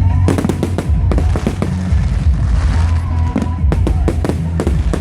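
Fireworks exploding in a rapid series of sharp bangs and crackles, coming in two volleys, with music playing underneath.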